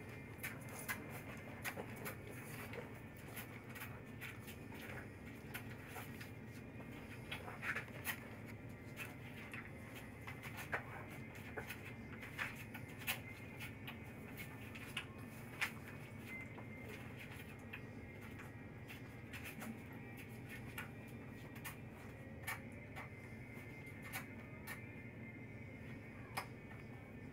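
Wolf pups suckling at a milk bottle and moving about: irregular small clicks and smacks, several a second at times, over a steady low hum of room noise.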